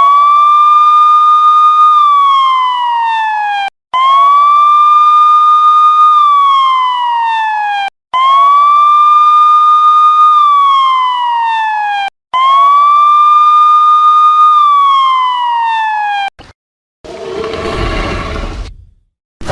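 Siren wailing in four identical cycles about four seconds apart: each rises quickly, holds its pitch for about two seconds, then slides down, and cuts off briefly before the next. About seventeen seconds in, a short noisy rumble takes over for about two seconds and fades away.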